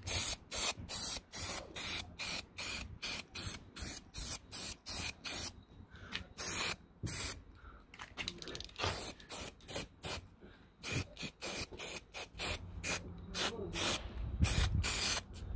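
Aerosol spray-paint can sprayed onto brake calipers in many short bursts, about two a second, with a few brief pauses.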